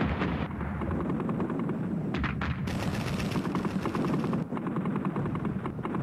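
Rapid machine-gun fire in long bursts over a steady low rumble of battle noise.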